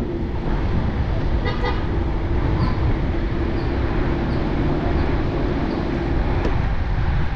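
Vehicle driving along a road: a steady engine drone with road and wind noise, and a short high-pitched sound about one and a half seconds in.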